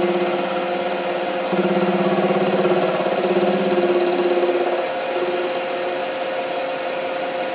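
CNC milling machine running: a steady motor whine made of several tones, with a lower throbbing tone that swells about a second and a half in and eases off a few seconds later.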